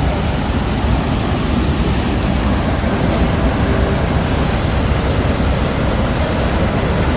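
Steady rush of a waterfall and fast-running river water, swollen after heavy rain.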